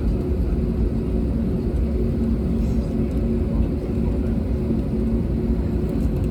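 Steady low rumble inside the cabin of an Airbus A320neo, with its Pratt & Whitney geared turbofans at ground idle, and a faint steady hum over it.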